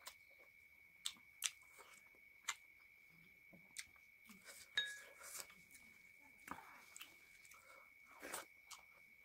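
Close-up mouth sounds of a person chewing a handful of rice and chicken curry eaten by hand, with scattered sharp wet clicks and smacks every second or so.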